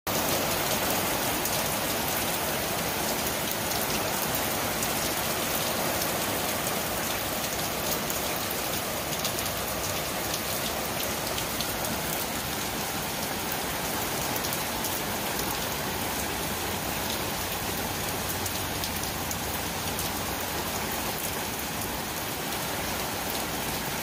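Steady rain falling on a wooden deck and garden: a dense, even hiss of rain with many individual drops ticking sharply through it.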